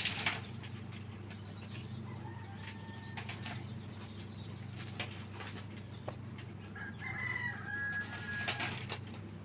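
A rooster crows in the background, a drawn-out call from about seven seconds in, with a fainter call a couple of seconds in. Under it runs a steady low hum, with a few sharp clicks and knocks from eggs and trays being handled.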